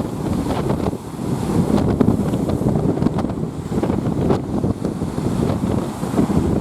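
Strong wind buffeting the microphone in gusts, over the wash of rough waves on a lake.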